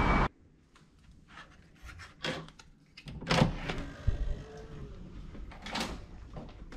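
Hotel room door being unlocked and opened: a scattering of clicks and knocks from the lock and handle. The loudest comes about three and a half seconds in.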